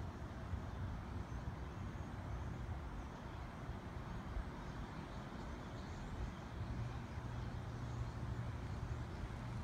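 Steady low rumble of distant engines under faint outdoor background noise.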